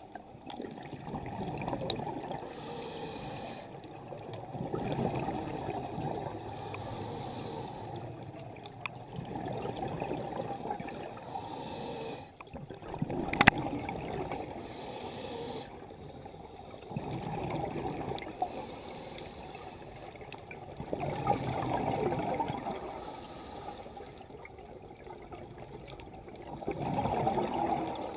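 Scuba diver's regulator breathing heard underwater: exhaled bubbles rush out in swells about every four seconds. There is one sharp click about halfway through.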